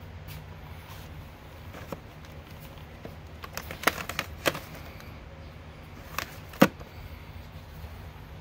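Plastic CD jewel cases clacking as a hand moves through a stack of them: a few sharp clicks about four seconds in and two more a couple of seconds later, the last the loudest, over a steady low rumble.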